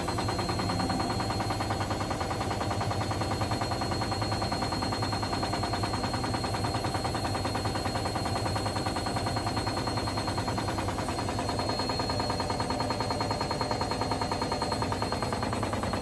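Hotpoint Ultima WT741 washing machine spinning an unbalanced load of towels with its shock absorbers detached: the loose tub knocks and rattles rapidly and without a break, over the running drum and a thin steady high whine.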